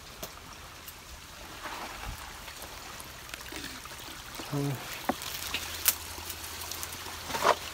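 Dry twigs and brush crackling and snapping underfoot as someone pushes through undergrowth, with a couple of sharp cracks around the middle and near the end, over a steady hiss of flowing river water.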